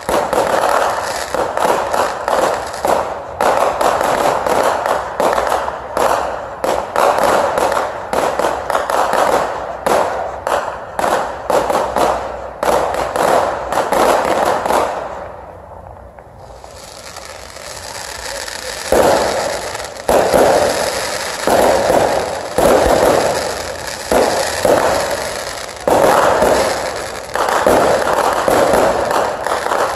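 Fireworks display: a dense run of bangs and crackling, a short lull about halfway through, then loud bursts about one a second.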